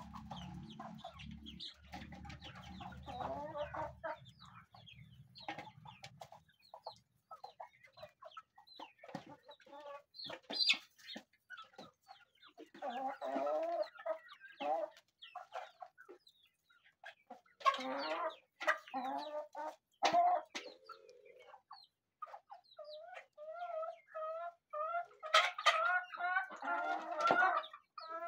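A flock of chickens clucking and calling as they feed, in many short pitched calls with sharp clicks between them. Near the end the calls come in an evenly repeated run. A low rumble sounds under the first six seconds or so.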